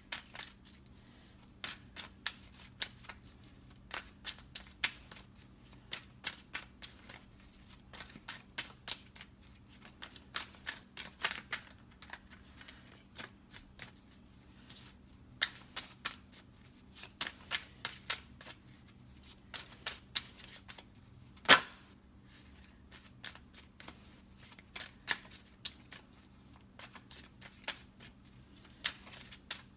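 A deck of tarot cards being shuffled by hand: irregular runs of crisp card riffles and flicks, with one louder snap about two-thirds of the way through.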